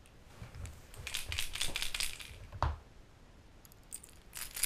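Close crackling rustle of fabric and bedding being handled next to the microphone, in two stretches, with one dull thump about two and a half seconds in.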